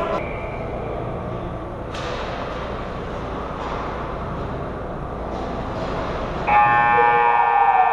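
Ice rink ambience, a steady noise with a sharp click about two seconds in. About six and a half seconds in, a loud, steady, multi-tone rink horn or buzzer starts suddenly and holds.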